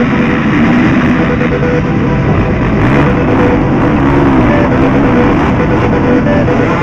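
A pack of motocross bikes accelerating hard off the start and passing close, engines revving and rising and falling in pitch, with rock music playing over them.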